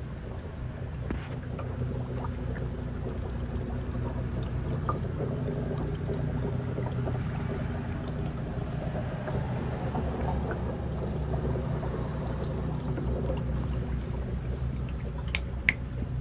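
Water pouring and trickling in a tub of bullhead catfish over a steady low mechanical hum. Near the end come a few sharp finger snaps over the water.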